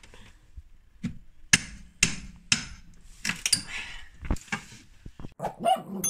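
Hammer blows on wood, sharp knocks coming about two a second with short pauses between runs.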